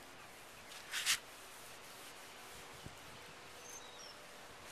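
A towel wiping toothpaste across a plastic car headlight lens, with one brief swish about a second in. Faint bird chirps sound over quiet outdoor background near the end.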